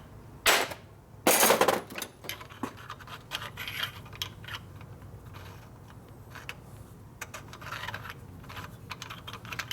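Small metal parts clinking and scraping as a fuel strainer is handled and test-fitted: a sharp click about half a second in, a louder scraping rattle a second later, then scattered light clicks and scrapes.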